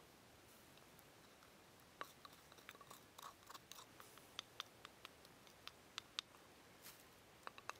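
Metal spoon and wooden pestle tapping and scraping in a wooden mortar of crushed dried chili and salt: a scatter of sharp little clicks and scrapes from about two seconds in, over a faint steady hiss.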